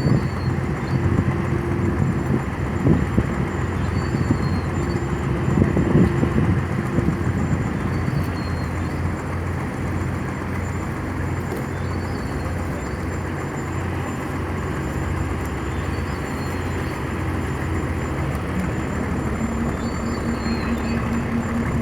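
Tugboat diesel engine running steadily with a deep, even drone and a thin high whine, with a faint short high chirp about every four seconds.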